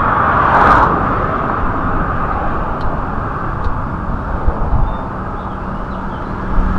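Passing road traffic: a steady rush of tyres and engines, with one vehicle sweeping past about half a second in. A few faint clicks sound in the middle.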